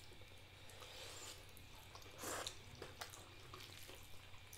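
Faint sounds of noodles being eaten with chopsticks from ceramic plates: light clicks and one short, slightly louder eating noise about two seconds in.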